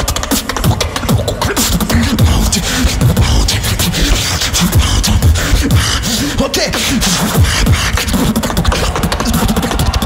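Beatboxer performing a showcase through a stage microphone: rapid sharp clicks and snares over deep bass sounds that drop in pitch, several to the second.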